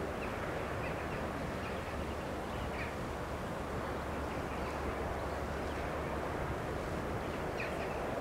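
Steady outdoor background noise with a low rumble, and a few faint, short bird calls scattered through it.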